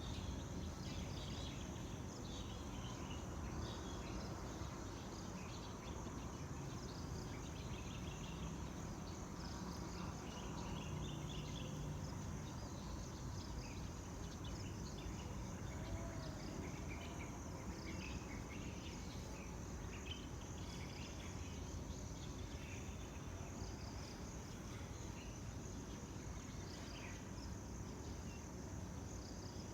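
Tropical ambience: a steady high drone of insects such as cicadas or crickets, with scattered short chirps and a low rumble underneath.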